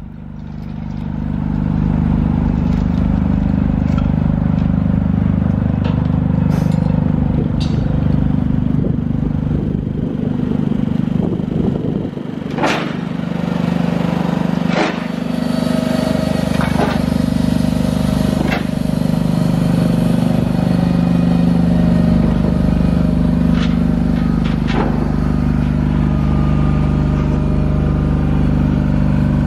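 Lighting tower's generator engine running at a steady speed, a constant low hum, with a few sharp clicks or knocks over it in the middle stretch.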